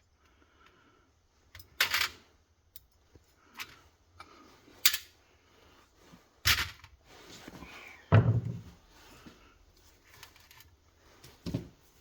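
Scattered knocks and clicks of small metal parts and tools being handled and set down on a workbench during carburetor disassembly. There are about five separate strikes with faint handling noise between them; the loudest, about eight seconds in, has a dull thump.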